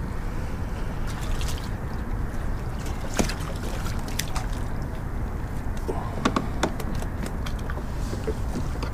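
Steady low rumble over the water, with a few sharp clicks and taps from a fishing rod and reel being handled in a kayak, about three seconds in and again around six to seven seconds.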